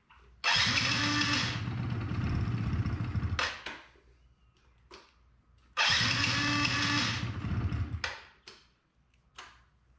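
2005 Yamaha Zuma YW50 49cc two-stroke scooter cranked twice on its electric starter, for about three seconds and then about two seconds, without the engine catching. The owner suspects a fuel supply problem.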